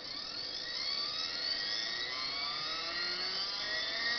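Stepper motor of a COEF Performance 200 scanner light turning its colour wheel, a whine of several tones that rise steadily in pitch as the wheel speeds up.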